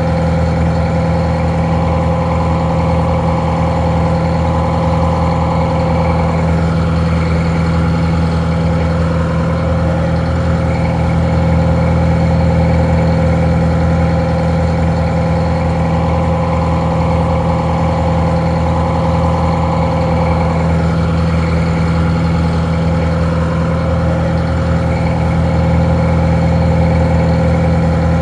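Detroit Diesel 4-71 two-stroke diesel engine idling steadily, a little muffled.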